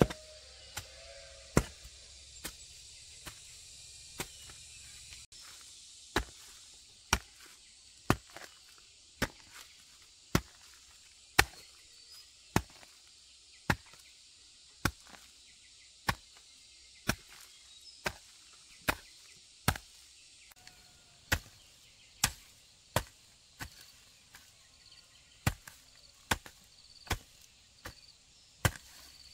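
Hand tool chopping in steady sharp strikes, about one a second, with a short pause around five seconds in.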